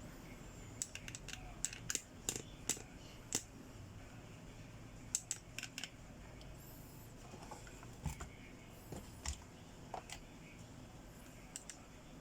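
Scattered light clicks and taps at an irregular pace, several in quick clusters in the first few seconds and again around five to six seconds in, fewer later; the sound of small plastic parts being handled or pressed.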